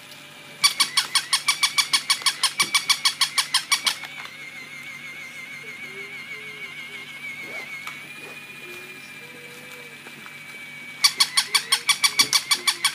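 Battery-powered toy puppy giving out a rapid run of short, high electronic sounds, about eight a second, for about three seconds, then again near the end, with a faint steady high tone underneath.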